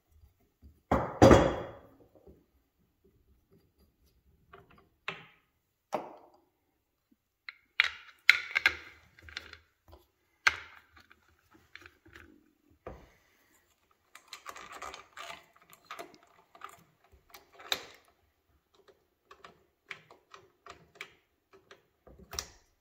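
Small metal and plastic parts handled on a plastic engine oil filter housing and oil cooler on a workbench: scattered clicks, knocks and clatter as fittings are worked on its ports. The loudest is a clatter about a second in, with a run of quick clicks a little past the middle.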